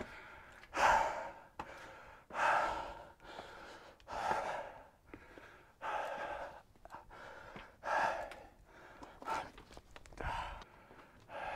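A man breathing hard while scrambling up rock, about seven loud breaths at an even pace of roughly one every second and a half. A few light knocks come between the breaths.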